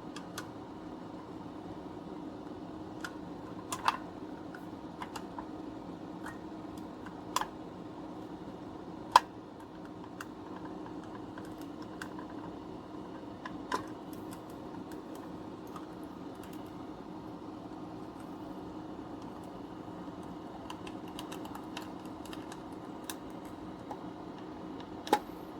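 Scattered light clicks and taps of a sewing machine foot pedal's plastic parts being handled and fitted together during reassembly, over a steady low hum. The sharpest click comes about nine seconds in.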